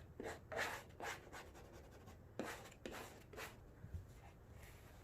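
A plastic squeegee scraping in short strokes across wet-applied vinyl film, pushing the water out from under it, in two bursts of several swipes each.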